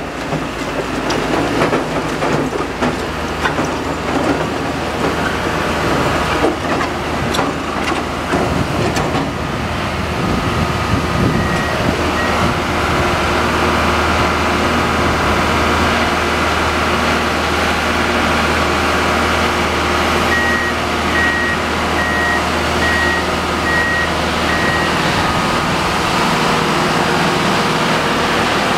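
Diesel engine of a railroad ballast regulator running as the machine travels slowly along the track, with a few knocks in the first several seconds. A warning beeper sounds a short string of beeps around 12 s in and again about 20 s in.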